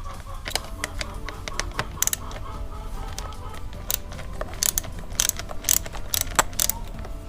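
Hand tool clicking and ticking irregularly as the T30 Torx screws of a motorcycle headlight shroud are backed out, over soft background music.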